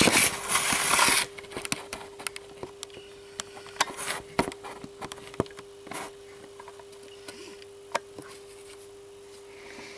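A scraping rustle for about the first second, then scattered light clicks and taps of handling on a steel workbench, over a steady hum.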